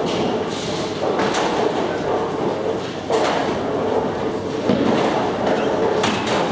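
Bowling alley din: bowling balls rolling down the lanes with a steady rumble, broken by a few sharp clatters of pins or balls, about a second in, about three seconds in and about six seconds in.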